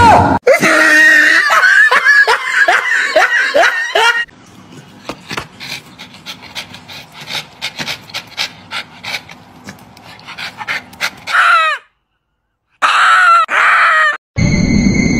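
A dog's high yelps and whines, several in a row, each falling in pitch, over the first four seconds, then faint ticking, then two or three more high falling calls near the end.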